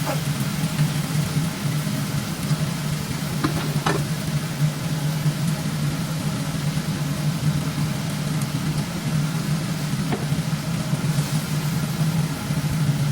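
Food sizzling as it is stir-fried in a pan, over a steady low hum, with a few short clicks of a utensil about four seconds in and again near ten seconds.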